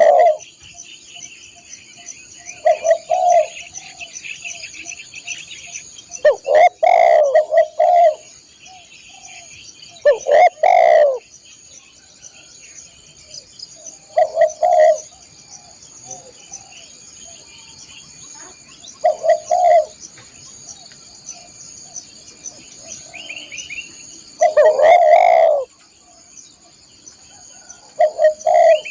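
Spotted dove (tekukur) cooing in short repeated phrases every few seconds, about eight bouts. A steady high chirring of insects runs underneath.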